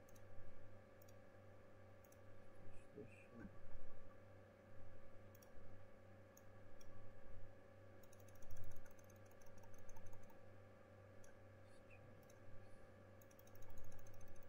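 Computer mouse clicks and keyboard key presses, scattered and irregular, over a steady low hum.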